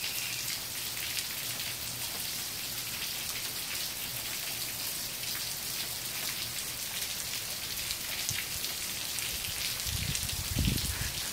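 Steady rain falling on a flooded patio and puddles: an even hiss with a fine patter of drops. A few low thumps come near the end.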